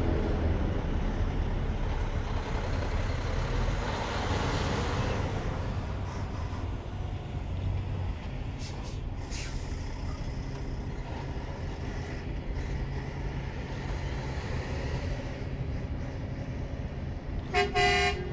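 Steady low outdoor city rumble, with a vehicle horn sounding two short honks near the end.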